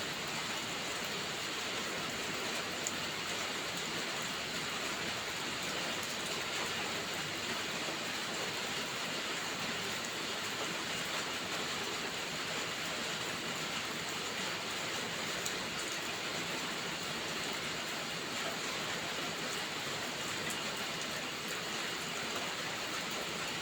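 Steady rain falling: an even hiss, with faint scattered ticks of drops.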